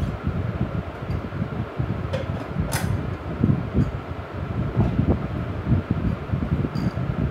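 Steady whir of a fan with a low, fluttering rumble, and one sharp click about three seconds in.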